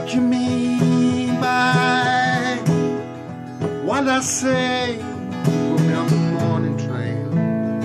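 A man singing a country folk song to his own strummed acoustic guitar, his voice coming in phrases over steady chords.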